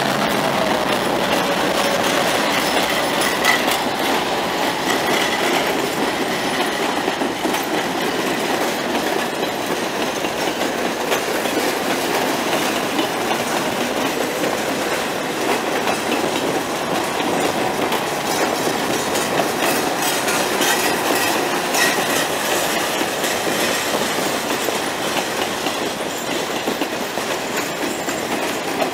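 Wine Train passenger cars rolling past close by: a steady rumble and clatter of steel wheels clicking over the rail joints.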